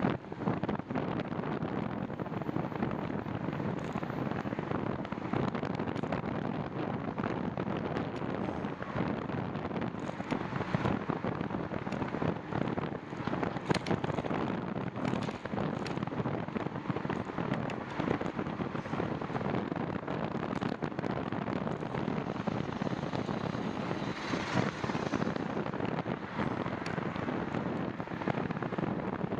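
Wind buffeting a bicycle's handlebar-mounted camera microphone while riding, a steady rushing noise with frequent crackles and knocks from the ride.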